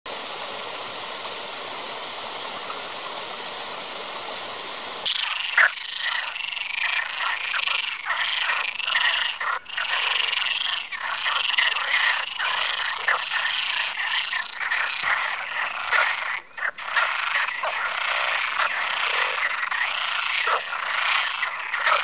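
A small woodland stream running over stones gives a steady rush of water for about five seconds. It then changes abruptly to a dense chorus of Iberian water frogs croaking, many rattling calls overlapping, with a few sharper, louder calls standing out.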